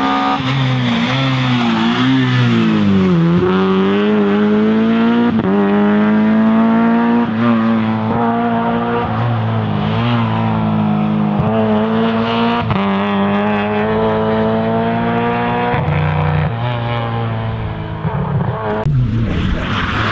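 Rally car engine at high revs, working through the gears: the pitch climbs and then drops sharply at each shift, many times over, with one dip and recovery a few seconds in.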